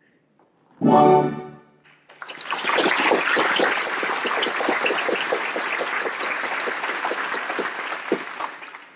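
An orchestra plays a short closing chord about a second in. Then an audience applauds for several seconds, the applause dying away near the end.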